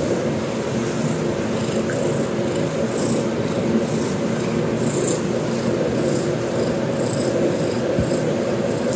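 Scottish Straight cat purring steadily while its belly is stroked, with short faint high hisses about once a second.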